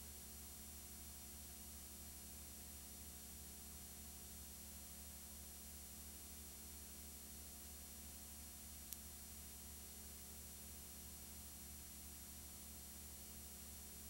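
Near silence: a steady low hum and hiss, with a single faint click about nine seconds in.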